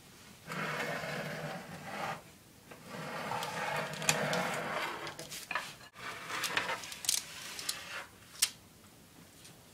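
Metal baking tray scraping as it is slid out of a wood stove's oven, in two long scrapes, followed by several sharp clicks and knocks as the tray is handled and set down on the stovetop.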